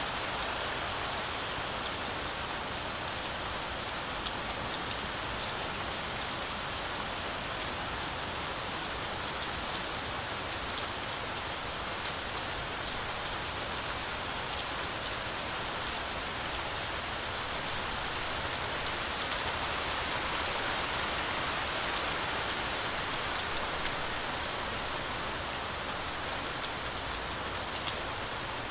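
Heavy, steady rainfall, a continuous hiss of drops with a few sharper drop ticks on top, swelling slightly about two-thirds of the way through.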